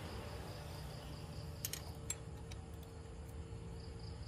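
A few faint metallic clicks from hand tools on a scooter engine's valve rocker arm, over a low steady hum. A feeler gauge blade and a wrench are being worked on the adjuster while the valve clearance is set to 0.06 mm.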